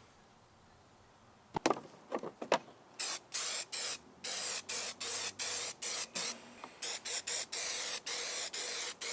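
Aerosol spray can sprayed in short repeated bursts, about two a second, after a few sharp clicks.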